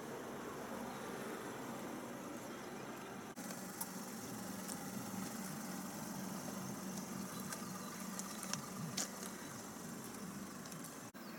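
Steady low background noise with a few faint clicks, briefly cut off about three seconds in and again near the end.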